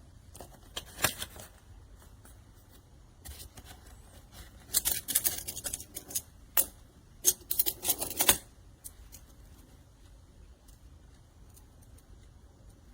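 Small hollow plastic magnetic cubes clicking and clattering together as they are handled, a few clicks about a second in and quick runs of clacks from about five to eight seconds in.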